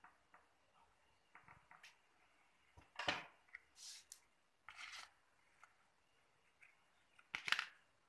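Sheet of origami paper being folded and creased by hand: a few short paper rustles, the loudest about three seconds in and again near the end.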